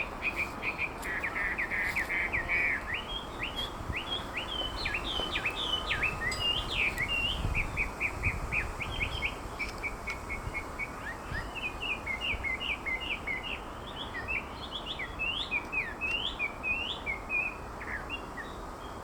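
Chinese hwamei (melodious laughingthrush) singing a long, varied song of quick whistled notes that sweep up and down, with a fast trill about a second in.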